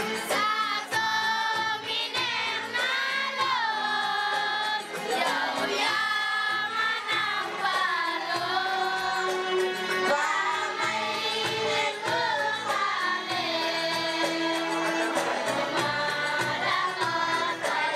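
A song: a high voice singing a gliding melody over held backing tones.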